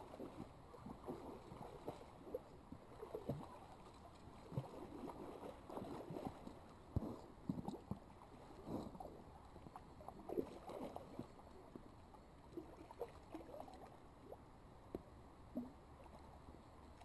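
Hooked steelhead thrashing at the surface close to the bank, making faint, irregular splashes and sloshes of water over a low steady creek rush.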